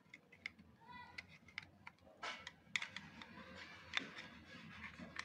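Irregular small clicks and taps of hard plastic and metal parts being handled while screws are lined up and fitted into a hair clipper's housing, with the sharpest click about four seconds in.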